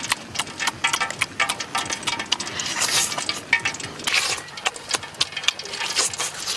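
Close-up eating sounds of roasted chicken eaten by hand: rapid wet mouth smacks and chewing clicks at an irregular pace, with a few louder sucking smacks near the middle.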